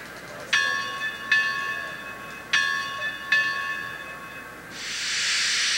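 Sound decoder in a Bachmann model steam locomotive playing its locomotive bell: two pairs of clanging strikes, each ringing on and fading. Near the end a loud steam hiss starts.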